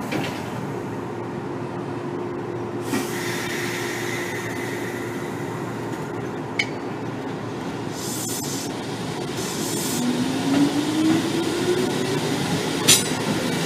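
Inside a Kotoden 1300 series train, an ex-Keikyu car with resistance-controlled DC traction motors, as it pulls away from the station. Two short hisses come about eight and nine seconds in. Then the motor and gear whine rises steadily in pitch as the train gathers speed and the running noise gets louder.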